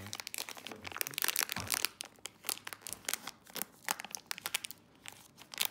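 Green metallic foil pouch crinkling and tearing as hands pull it open: dense crackling for about the first two seconds, then sparser, quieter crinkles.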